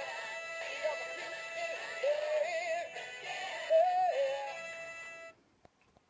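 Animated plush monkey toy playing a song through its built-in speaker, a singing voice over music, while it dances. The song cuts off suddenly about five seconds in, followed by a faint click.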